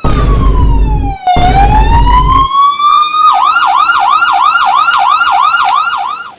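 Police siren sounding: a slow wail that falls and rises again, then about three seconds in it switches to a fast yelp, about three to four sweeps a second. A low rumble runs under it for the first two seconds or so.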